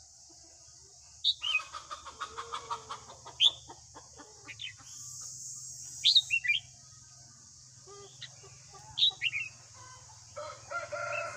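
Red-whiskered bulbul singing: loud, short whistled phrases of sharp falling notes, repeated about five times. A lower, harsher chattering call comes in between about one and three seconds in, and again near the end.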